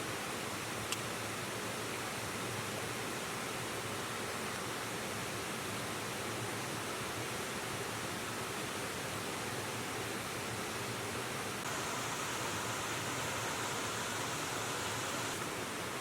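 River water rushing steadily, with a single sharp click about a second in.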